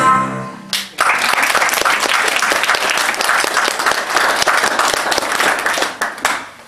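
Audience applauding, starting about a second in as the music stops and dying away near the end.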